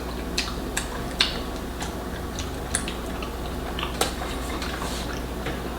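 Light, irregular clicks and taps of eating at a table, utensils and dishes knocking, over a steady low hum.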